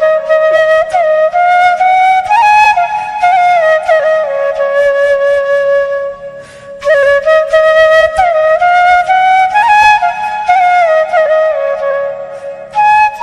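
Bamboo flute (bansuri) playing a slow melody, sliding between notes, with a short break about six seconds in.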